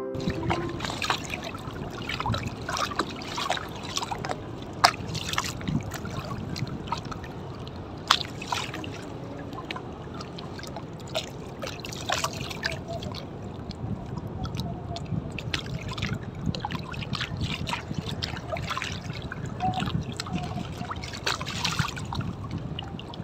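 River water lapping and trickling against the side of a wooden rowboat, with irregular small splashes.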